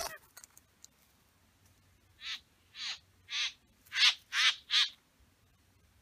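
A loud buzzing cuts off at the very start. Then a satin bowerbird gives six harsh calls about half a second apart, the last three loudest.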